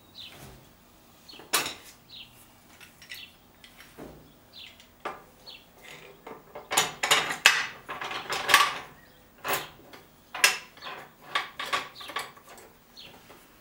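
Clamp hardware on the Evolution S355MCS chop saw's base being slid along the clamp bar and fitted: a run of sharp metal clanks and clicks, thickest about halfway through.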